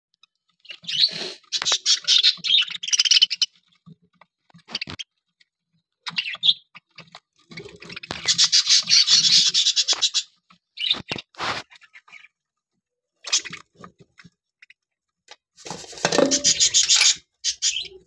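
A flock of budgerigars chattering: three long spells of scratchy, high-pitched warbling, near the start, in the middle and near the end, with short single chirps between them.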